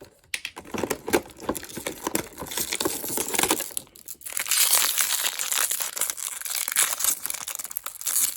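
Plastic toy packaging crinkling and tearing as it is opened by hand, with a short pause midway and then a longer stretch of steady crinkling.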